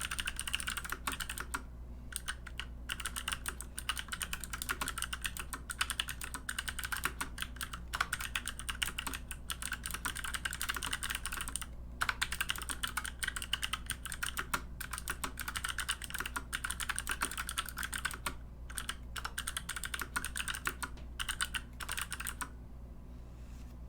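Fast typing on a mechanical keyboard with clicky Kailh Box Pink switches, DSA keycaps and an aluminium plate and case: a quick, dense run of sharp key clicks with a few brief pauses, stopping near the end.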